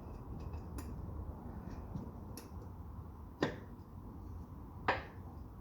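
Two sharp clicks or knocks about a second and a half apart, with fainter ticks between, as a very tight drain bung is worked loose from the sump of a hydraulic power hacksaw.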